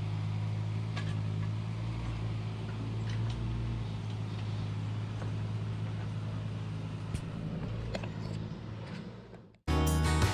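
Heavy-equipment engine running steadily at a low hum, with a few faint clicks. It fades out just before the end, where music cuts in.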